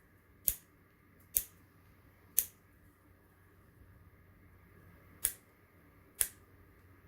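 Cutters snipping tails off a small switch: five sharp snips, three close together in the first few seconds and two more later.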